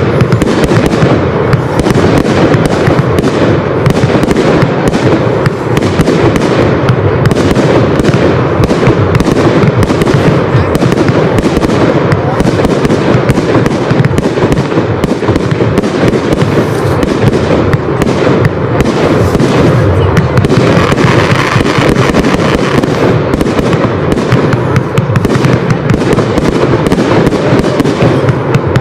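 Aerial fireworks display: shells and low ground effects firing in a dense, unbroken barrage of bangs, many close together throughout.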